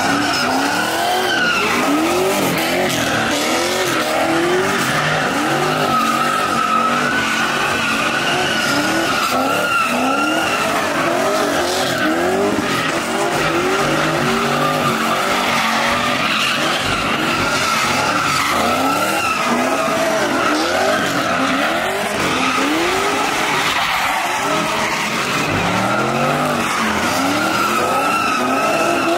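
Cars doing donuts: tyres squealing continuously while an engine revs up and down over and over, at times about twice a second.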